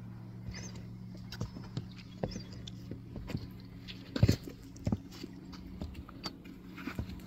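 Footsteps going down wooden outdoor stairs: irregular soft knocks and scuffs, with two louder thuds a little past halfway, over a faint steady low hum.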